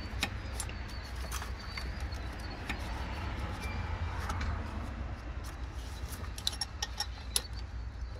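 Scattered metallic clicks and taps of hand tools and engine parts being handled, thickest about six to seven seconds in, over a steady low rumble.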